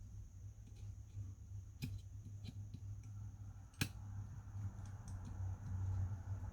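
Scattered light clicks and ticks of small repair tools on an iPhone 12 Pro Max's internal parts as its tiny screws are undone, the loudest click a little before four seconds in. A low steady hum lies underneath.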